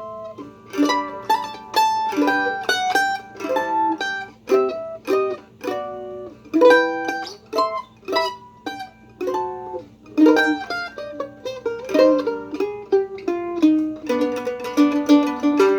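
Craig Wilson WA-5 "Griffith Loar" tribute mandolin played solo on its original strings: a picked melody of single notes and double stops. Near the end it breaks into fast tremolo picking on a held chord.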